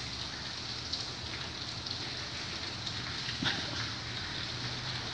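Steady hissing background noise with a low hum underneath, and a faint knock about three and a half seconds in.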